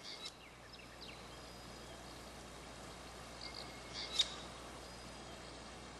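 Faint, short bird chirps over a steady hiss of outdoor background noise, a few near the start and a small cluster about four seconds in.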